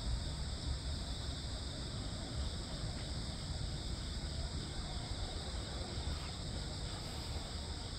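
Steady chorus of crickets and other insects, a continuous high trill, over a low rumble.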